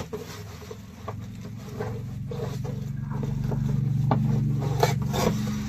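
Packaging rustling and scraping in short clicks as items are worked out of a tightly packed box, over a low hum that swells to its loudest about four seconds in and then fades.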